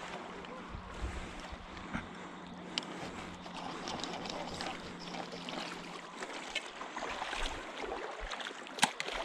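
Shallow creek water sloshing and trickling as people wade through it, with scattered small clicks and knocks and one sharper knock near the end. A faint steady hum runs under it and stops about two-thirds of the way through.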